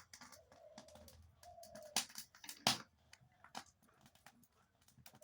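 Hot oil crackling and popping in a kadai where boiled eggs are frying, just after more oil has gone in, with two louder pops about two seconds and nearly three seconds in.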